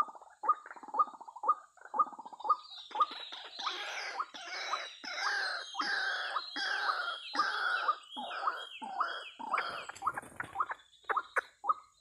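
White-breasted waterhens calling. Short calls repeat about twice a second, then from about three seconds in a louder, overlapping run of calls with falling notes lasts some seven seconds, before the short rhythmic calls return.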